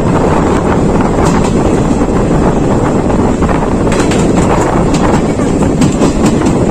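Wind buffeting the microphone on a moving passenger train, over the steady rumble of the train running along the rails, with a few sharp clicks in the second half.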